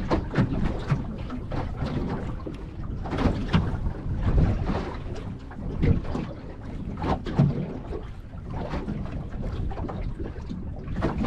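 Wind buffeting the microphone on an open boat at sea, a constant low rumble, with irregular knocks and slaps scattered through it.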